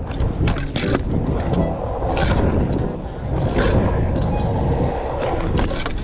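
Trick scooter rolling hard over concrete, a continuous rough wheel rumble broken by several knocks and clacks and a couple of short scrapes. The scooter is missing two axle washers, which the rider blames for how bad it sounds.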